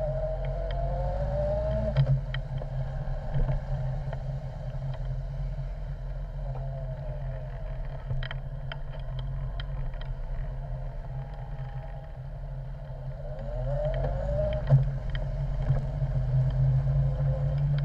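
Honda X4 motorcycle's four-cylinder engine running on the move, a steady low hum whose pitch rises as the bike accelerates about a second in and again near the end, with a few light clicks around the middle.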